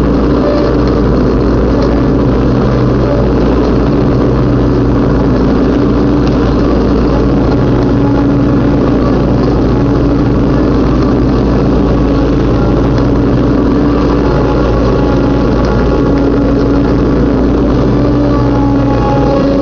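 Riding lawnmower engine running steadily under load while cutting grass.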